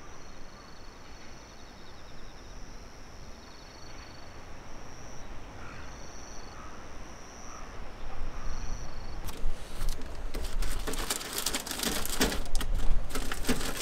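Insects chirping steadily in two high, unbroken tones, over a low rumble. From about nine seconds in, rustling and sharp clicks as a plastic-sleeved bundle of papers is pushed through the flap of a stainless steel mailbox.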